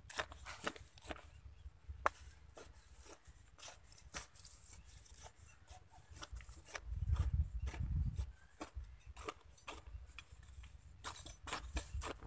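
A hand hoe digging into dry, clumpy soil around the base of a shrub: irregular scrapes and knocks of the blade in the earth, with clods crumbling. A low rumble comes in about seven seconds in and lasts about a second.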